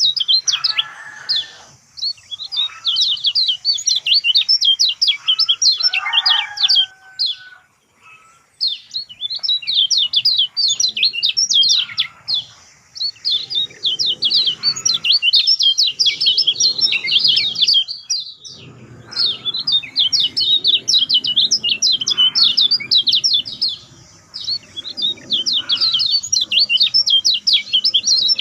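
Lemon-bellied white-eye (kecial kuning) singing a fast, continuous twittering chatter of rapid high chirps. It comes in long runs with brief pauses about a third of the way in and again past the middle.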